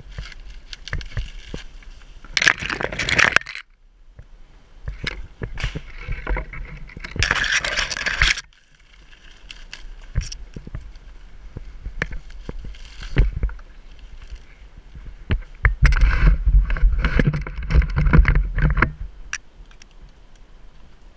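Dry cocos palm fronds and fruit stalks rustling, scraping and crackling close against the camera, with scattered knocks and clicks. There are two short bursts of rustling about 2 to 3 and 7 to 8 seconds in, and a longer, heavier bout of rubbing and thumps near the end.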